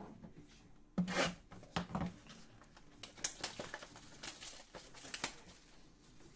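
Hands opening a sealed Topps Tier One card box: irregular rustling, crinkling and tearing of wrapper and cardboard, loudest about a second in, with smaller scrapes after.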